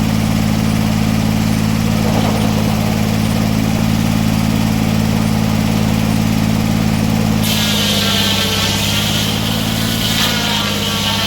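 Sawmill engine running steadily; about seven and a half seconds in the blade starts cutting into a red pine log, adding a loud high hiss and whine of sawing as the engine note drops slightly under the load.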